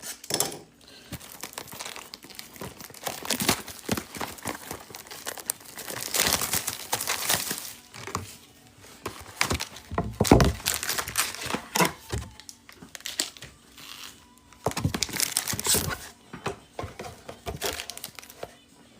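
Crinkling and rustling of foil Pokémon booster-pack wrappers and plastic packaging being handled, in irregular bouts with occasional light knocks.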